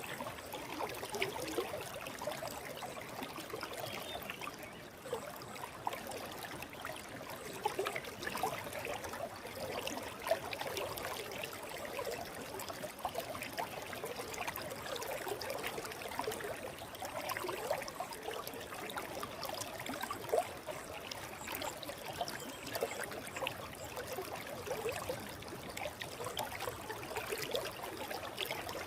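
Stream water flowing and trickling over rocks: a steady, continuous babble with lots of small splashes and gurgles.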